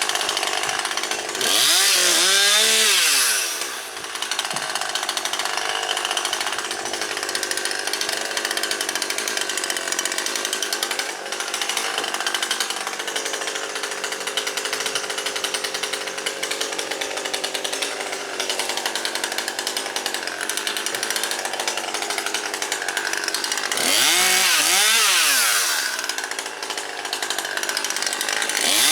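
Husqvarna 540XP Mark III two-stroke chainsaw running steadily, revved hard twice: about two seconds in and again near the end, each time for about two seconds, with the pitch climbing and falling back.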